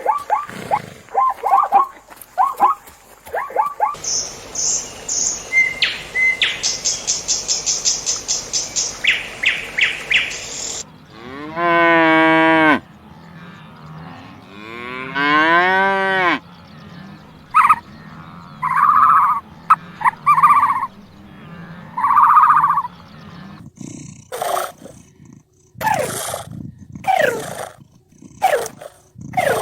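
A string of farm animal calls. Two long mooing calls from cattle, rising then falling in pitch, come about 11 and 15 seconds in. Shorter chirps and cries from other animals come before and after them.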